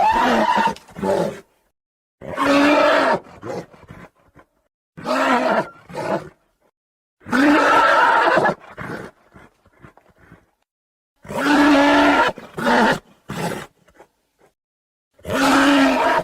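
Scutosaurus creature sound effect: six separate deep, pitched animal calls, each lasting about a second, with silence between them.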